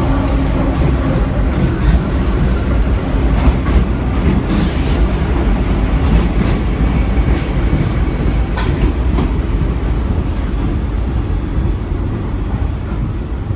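NYC subway work train of R32 cars hauling R127 refuse cars passing close by on the elevated track: a loud steady rumble of steel wheels on rail, with occasional sharp clicks as the wheels cross rail joints. The sound eases a little near the end.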